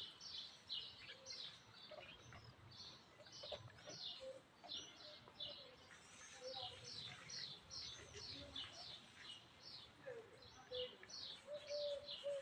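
Small birds chirping continuously, quick high downward-swept chirps several a second, with faint crunching of dry cat food as a cat eats.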